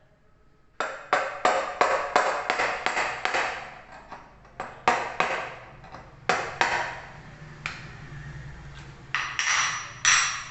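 Metal tool striking the metal fittings of an electric water heater: a quick run of about ten sharp, ringing knocks, then a handful of scattered knocks and a brief ringing scrape near the end.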